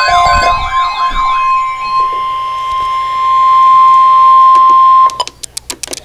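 Weather alert radios sounding: a warbling siren-like alarm fades out in the first second and a half, leaving a single steady tone a little above 1 kHz, the weather-radio warning alarm tone. It cuts off suddenly about five seconds in, followed by a few short beeps and clicks from button presses on a Midland weather radio.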